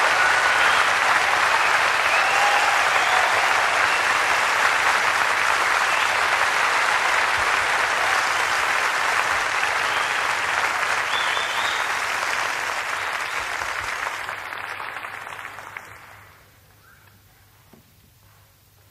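Concert hall audience applauding, which fades away about fifteen seconds in.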